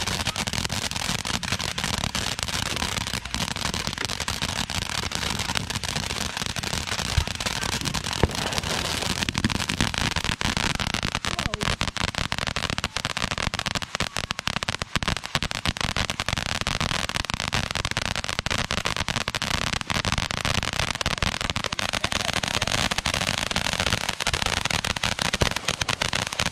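Fireworks crackling and popping in a dense, rapid, continuous stream, with two sharper bangs about seven and eight seconds in.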